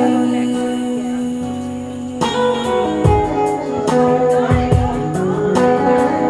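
Live band playing a reggae song, with guitar to the fore. A chord is held for about two seconds, then the rhythm comes back in with bass notes and steady percussion strokes.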